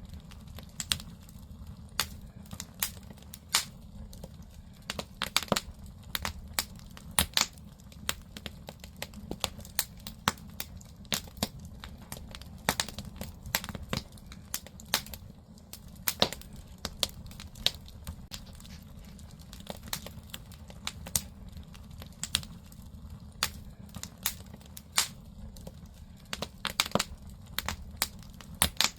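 Firewood burning in a Korean agungi, the traditional wood-fired firebox that heats an ondol floor: irregular sharp crackles and pops, several a second, over a steady low rumble.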